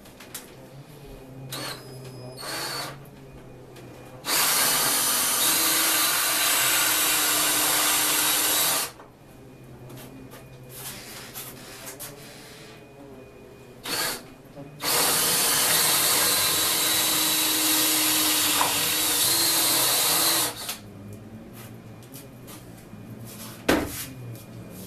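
Power drill boring up through the plywood bench top for the vise's carriage-bolt holes, running two times for about four to six seconds each, with a short trigger blip just before the second run.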